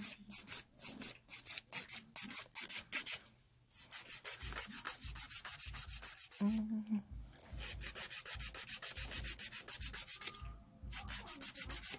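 Hand nail file rasping back and forth across a fingernail in quick, even strokes, pausing briefly twice, as a thick, grown-out nail is filed down.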